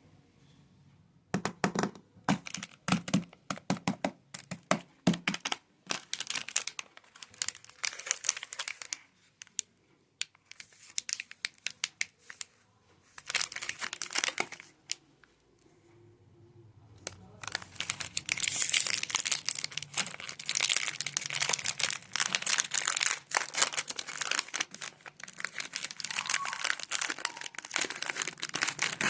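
Cadbury Oreo chocolate bar wrappers being crinkled and torn open. The first half comes in short bursts of crinkling with brief pauses; about halfway through it becomes a long, dense, continuous crinkling.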